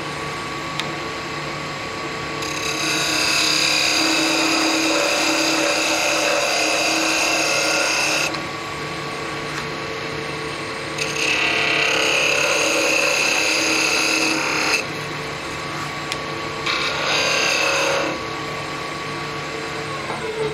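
Wood lathe running with a steady hum while a hand-held turning tool cuts the spinning spindle blank of a letter-opener handle. The cutting makes three passes of a high-pitched whine: a long one a few seconds in, another in the middle, and a short one near the end. The lathe's hum falls in pitch just before the end.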